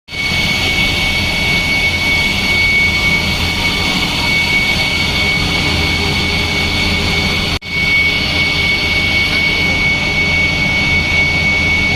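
Water-cooled chiller running: a loud, steady machine drone with a constant high-pitched whine over a low hum. It drops out for an instant about seven and a half seconds in.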